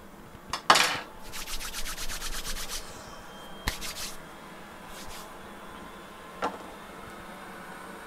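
Small hand tools handled on an electronics repair bench: a knock and a short scrape, then a quick run of about a dozen even clicks, followed by a few single ticks of small metal parts being set down.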